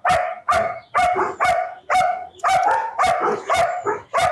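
A dog barking repeatedly, loud sharp barks at about two a second.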